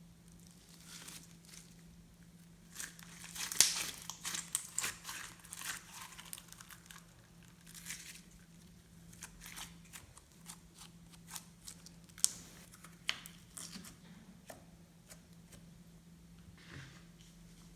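Irregular crinkling and crackling from hands working a material, with quick sharp clicks that are densest and loudest in the first few seconds, then thin out to scattered single clicks. A faint steady low hum runs underneath.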